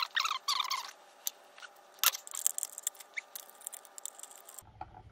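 Hands handling insulated wires and ring terminals, with scratchy rustling and small clicks and one sharp click about two seconds in.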